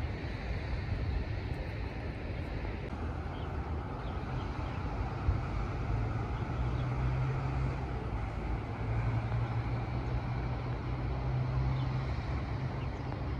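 Outdoor ambience made up of a steady low hum, stronger for a few seconds around the middle, over a soft even background rumble, with a few faint high chirps.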